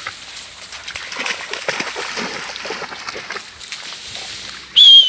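A bulldog puppy splashing and wading through a shallow flooded puddle, the water sloshing around its legs. Near the end, a short, loud, high whistle.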